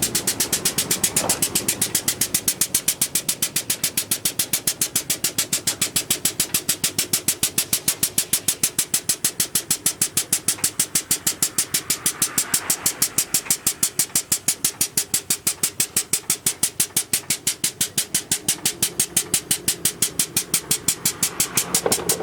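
An engine idling steadily, with an even pulsing about four to five times a second.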